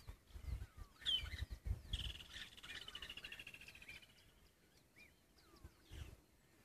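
Guineafowl alarm calling: a rapid, repeated rattling chatter lasting about two seconds after a single sharper call, a sign of a predator nearby, which the guide thinks may be a male leopard. A few low thumps sit under the calls.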